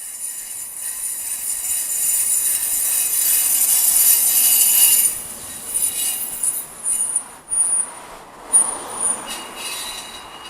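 High-pitched squealing (キーキー) abnormal noise from a Subaru XV. A continuous squeal grows louder over about five seconds, then breaks into short, separate squeaks that fade near the end.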